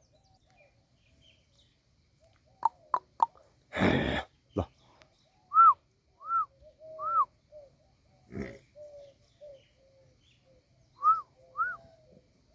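Birds calling: short, arched chirps in a group of three and then a pair, over fainter wavering calls. A few sharp clicks come just before a brief loud rush of noise about four seconds in.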